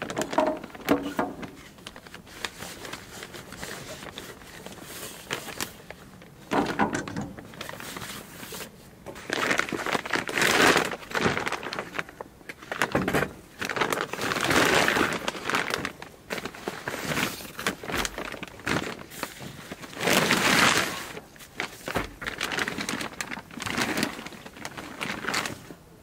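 Nylon dry bag and stuff sacks rustling and crinkling in irregular bursts as camping gear is unpacked and a blanket is pulled out, with a few short knocks of items set down on the wooden deck.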